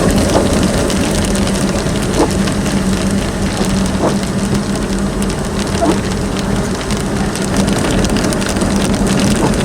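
Rain on a moving car, with a steady hum under it and a short squeak about every two seconds.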